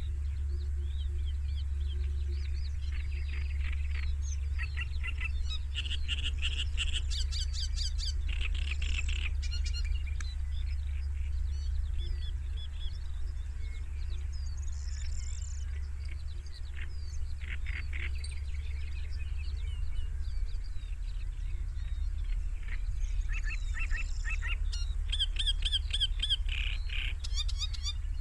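Songbirds singing and chirping in bursts of quick trills, over a steady low rumble.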